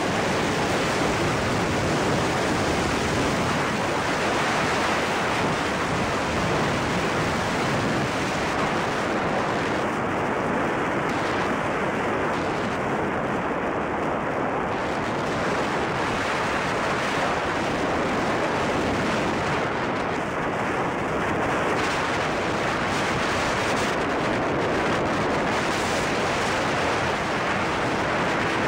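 Steady rush of wind over the microphone and tyre noise from a motorcycle riding at speed on wet tarmac.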